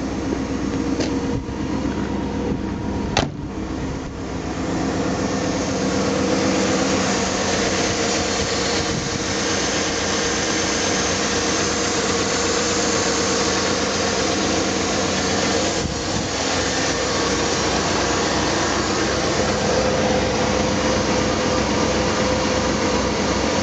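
1956 Cadillac Fleetwood's 365 cubic-inch V8 idling steadily, with a sharp click about three seconds in. From about five seconds in it is louder and fuller, heard close up from the open engine bay.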